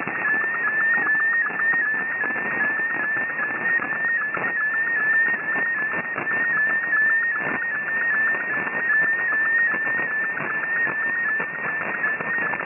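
MFSK picture-mode digital image transmission received on shortwave: a single warbling tone near the top of the audio band that glides and resets about three times a second, over steady band hiss, with a couple of short static crashes.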